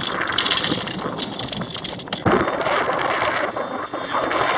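Wind buffeting the microphone on a small open fishing boat in choppy water: a steady rushing noise with scattered small clicks and knocks.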